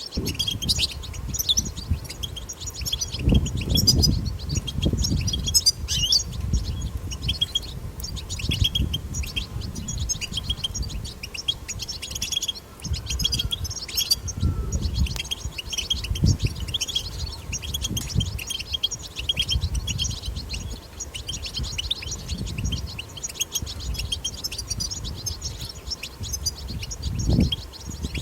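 European goldfinch twittering: a continuous rapid run of high chirps and trills, the wild goldfinch chatter used to stimulate caged goldfinches to sing. Intermittent low rumbles come and go underneath.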